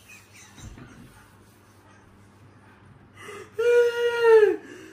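A woman's long, high-pitched whining groan of exasperation, about a second long, starting three and a half seconds in after a quiet stretch and dropping in pitch as it ends.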